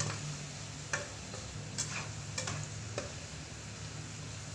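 Silicone spatula stirring food in a nonstick wok over the sizzle of frying, with several sharp knocks of the spatula against the pan, over a steady low hum.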